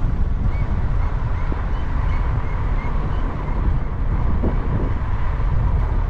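Steady low rumble of a car driving, with wind buffeting the microphone.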